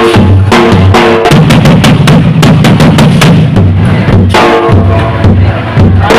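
Nasik dhol drumming, loud and driving: a steady pounding beat gives way about a second in to a dense roll lasting about three seconds, then the beat returns.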